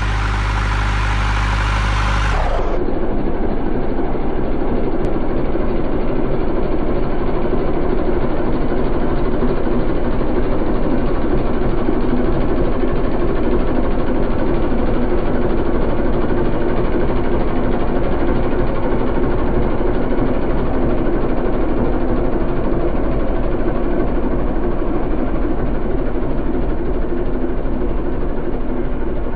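Farm tractor's diesel engine running steadily under load as it pulls a rotary-hoe crust breaker through dry soil. The first two seconds hold a brighter sound with strong steady low tones that cuts off abruptly.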